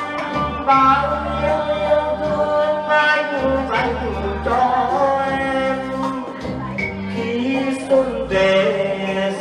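Music: a man singing long held notes over a backing track.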